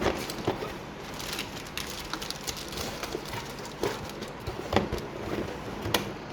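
Irregular taps, clicks and rustling of computer parts and their packaging being handled on a work surface.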